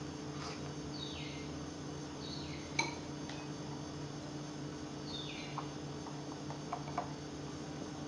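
Silicone spatula scraping and squeaking against a glass mixing bowl while folding a yolk mixture into whipped egg whites, with a sharp glass clink about three seconds in and a few lighter taps later, over a steady low hum.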